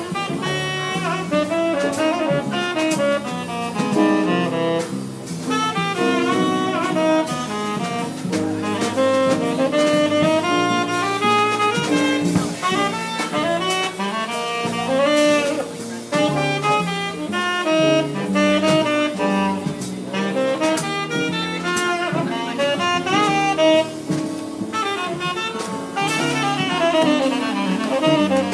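Jazz quartet playing live: a lead instrument plays fast melodic runs over a bass line and a drum kit.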